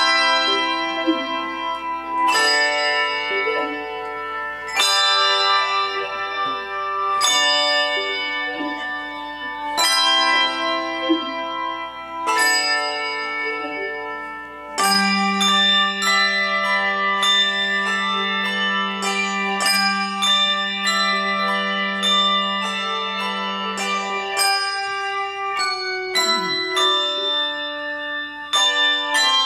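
Handbell choir ringing: full chords struck about every two and a half seconds, each left to ring, then from about halfway a quicker run of notes over a long held low note.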